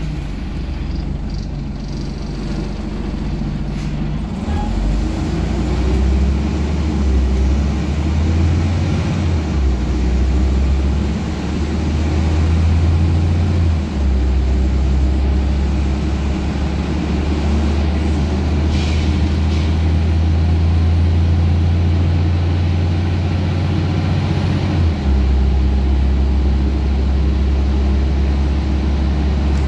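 Scania N94UB bus's rear-mounted diesel engine heard from inside the saloon, pulling the bus along and building speed. Its drone steps in pitch as the automatic gearbox changes gear, about halfway through and again some 25 seconds in.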